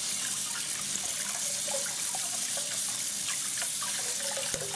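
Kitchen tap running steadily onto a lathered shaving brush as it is rinsed out under the stream, water splashing into the basin.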